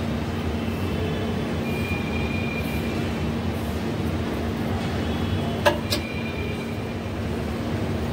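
Steady low outdoor background rumble with a constant hum, like distant traffic. Two sharp clicks come close together a little past halfway.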